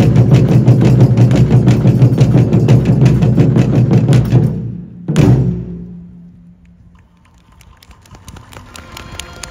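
Japanese taiko drums beaten in a fast, even roll that fades out about four and a half seconds in, then one loud closing stroke that rings on for a moment before a quieter stretch.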